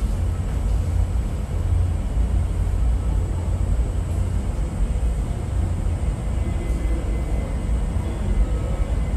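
Steady low background rumble of room noise, with a faint high steady whine above it; no distinct event stands out.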